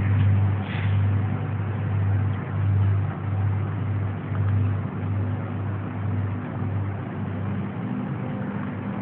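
Low, unexplained humming drone of the kind reported as 'strange sounds' in the sky in 2012, swelling and dipping about once a second and fading near the end, recorded through a mobile phone's microphone.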